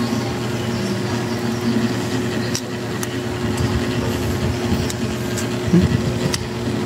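A steady machine hum with a constant low tone, with a few faint light clicks of a metal spoon against a plastic food tub.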